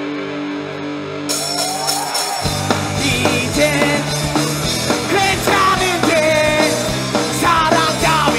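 Live rock band playing: a soft held guitar chord opens, then the full band with drums and bass comes in about two and a half seconds in. A lead singer's voice carries the melody over it.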